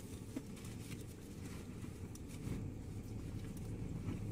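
Faint steady low rumble inside a truck cab, with a few soft clicks and rustles of small things being handled.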